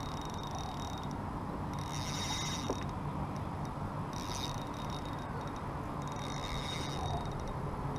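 Spinning reel being wound in three short spurts while playing a small fish, a fine, fast mechanical clicking each time, over a steady low rumble.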